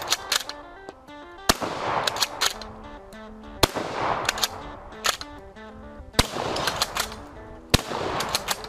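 Four gunshots about two seconds apart, each followed by a few quick sharp clicks and a fading echo, over background music.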